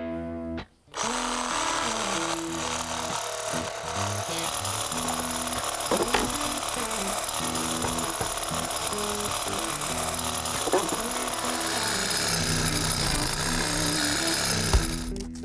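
Reciprocating saw cutting through a wooden fence post. It starts about a second in, runs steadily and stops near the end. Background music plays underneath.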